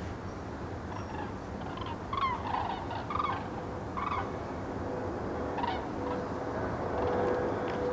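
A migrating flock of cranes calling overhead: a series of rolling, trumpeting calls, most of them in the first half. From about the middle on, the steady drone of a jet airliner's engines grows louder underneath.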